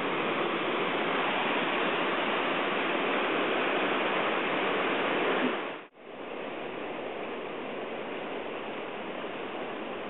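Rushing river water, a steady even noise. It cuts out abruptly about six seconds in and returns quieter.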